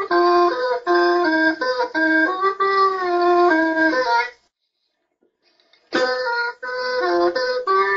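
Hmong raj nplaim, a bamboo free-reed pipe, playing a tune of held, reedy notes that step up and down. It stops for about a second and a half near the middle, then the tune picks up again.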